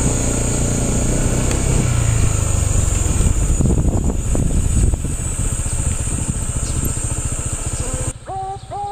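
Vehicle engine, like a motorcycle's, running steadily close by, with a steady high hiss above it. About eight seconds in, the sound cuts to quieter short bird chirps.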